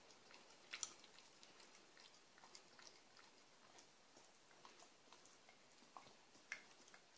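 Pembroke Welsh corgi licking peanut butter off a metal spoon: faint wet smacking and tongue clicks throughout, with two louder clicks about a second in and near the end.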